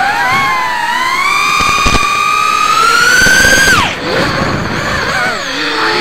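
ImmersionRC Vortex 180 racing quadcopter's motors and propellers whining, the pitch climbing steadily under throttle for about three and a half seconds, then dropping sharply as the throttle is chopped. A lower, wavering whine follows as the quad tumbles and recovers.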